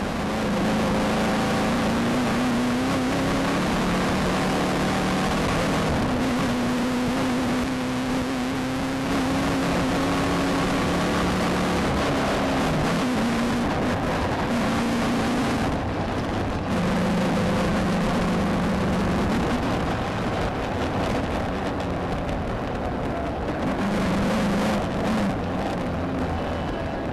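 Engine of a Volkswagen Beetle-based desert race car, heard from inside the car at race pace. The engine note climbs and drops several times over a constant rush of wind, tyre and chassis noise.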